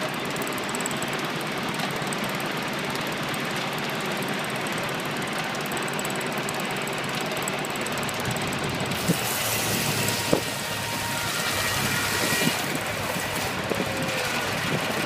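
Belt-driven circular sawmill running steadily. About nine seconds in, a louder, higher hiss of the blade cutting through a log joins in, with a few sharp knocks.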